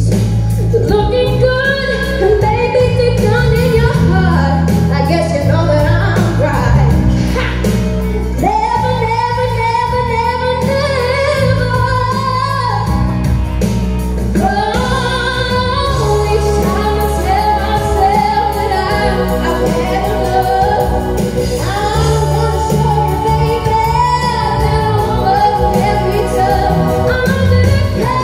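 A woman singing solo into a handheld microphone over an instrumental backing track, with a long held note about eight seconds in.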